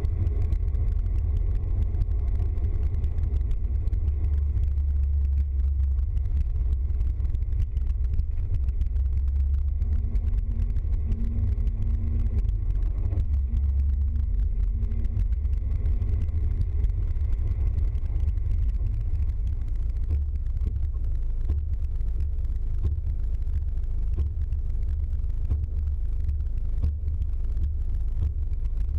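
Vehicle engine and road noise heard from inside the van's cab while driving: a steady low rumble that holds evenly throughout.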